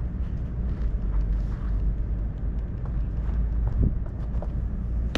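Outdoor ambience at a ballfield: a steady low rumble, with a few faint light knocks and a brief faint distant call near the end.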